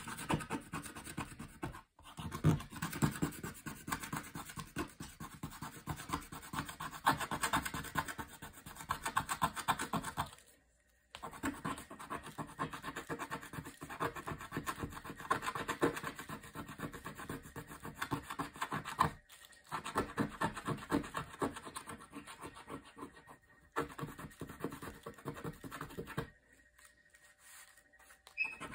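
A small blue tool rubbed quickly back and forth over the surface of a printed picture board, making a fast, steady scratching. The strokes stop briefly about ten and nineteen seconds in and go quieter near the end.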